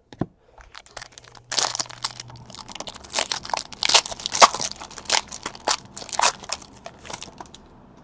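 Foil wrapper of a Panini Certified football card pack being torn open and crumpled: dense crinkling crackle that starts about a second and a half in and stops just before the end.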